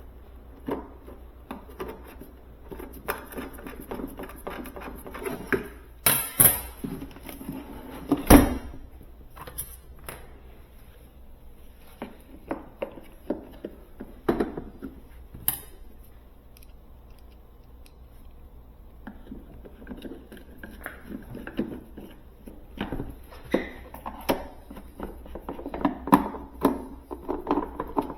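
Hands working on plastic housing parts and screws of an electric pressure washer: scattered small plastic clicks and taps, with two louder knocks about six and eight seconds in and busier clicking near the end.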